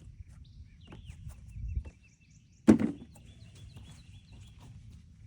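One sharp, heavy thunk about three seconds in, like something heavy being dropped or struck, over low rustling and handling noise. Birds chirp faintly in the background.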